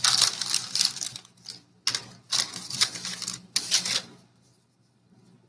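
Baseball card pack wrapper crinkling and tearing as it is opened, in several irregular crackling bursts that stop about four seconds in.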